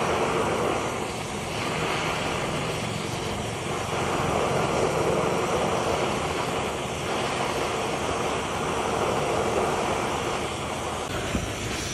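Oxy-fuel cutting torch flame playing on a steel bar, a steady rushing hiss as the steel is heated red-hot.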